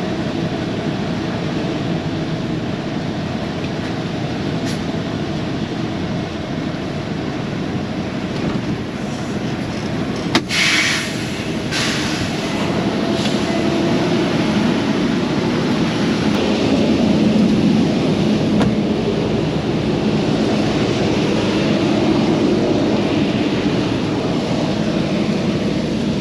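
Tractor-trailer's diesel engine idling steadily. About ten seconds in, a sharp click and a short burst of air hiss, followed by fainter hisses: the air brakes being set after backing up to the dock.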